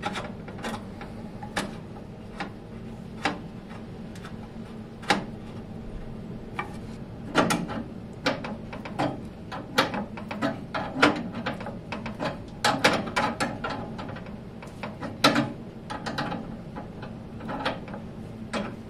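Spanners clicking and scraping against a brass compression fitting as it is tightened onto a copper fuel line: irregular sharp metal clicks, thicker in the second half.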